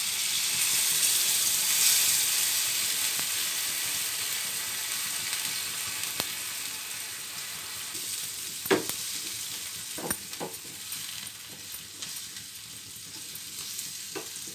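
Water poured into a hot pan of star fruit pieces in oil and spices, sizzling loudly for the first couple of seconds and then easing into a steady hiss. From about the middle on, a spatula stirs the pieces and knocks a few times against the non-stick pan.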